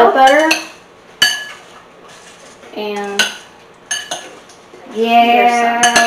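A metal utensil clinking and scraping against a white ceramic baking dish while popcorn is stirred, with a few sharp clinks about a second in and again around three and four seconds. A person's voice is heard at the start and near the end.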